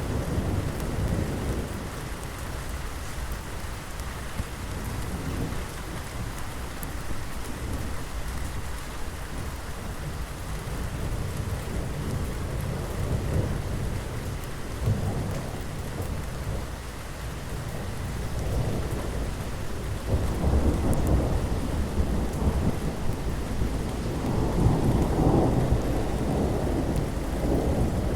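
Thunderstorm: steady rain with rolling rumbles of thunder, the thunder swelling and growing louder from about two-thirds of the way in.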